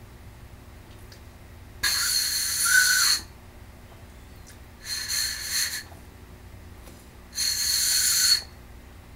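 Breathy, high whistling tone from blowing across the open end of a small pen cap, the way a xiao is blown, sounded three times for about a second each, the first the longest.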